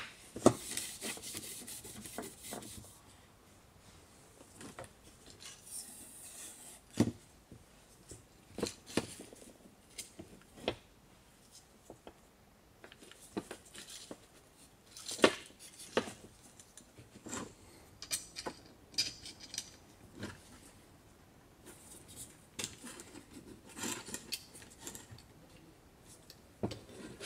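Peugeot 607 window regulator being handled and assembled by hand: scattered clicks, taps and rubbing of plastic and metal as the new runner is slid onto the metal track and the cables are clipped into place, with a few sharper clicks among them.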